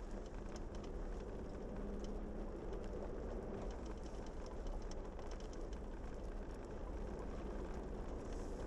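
Jeep driving on a gravel road: a steady rumble of engine and tyres with scattered small clicks of gravel. A big-rig truck goes by near the end.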